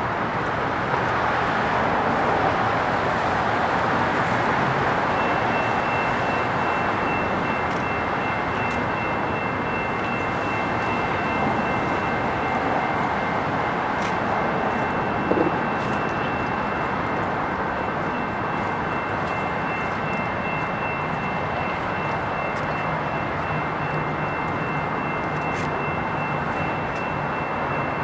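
Steady traffic noise from the freeway overpass above the tracks. About five seconds in, a faint, steady, high-pitched ringing joins it.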